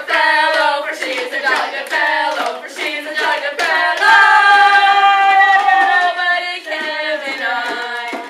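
Several voices singing together with hand claps, holding one long note about four seconds in.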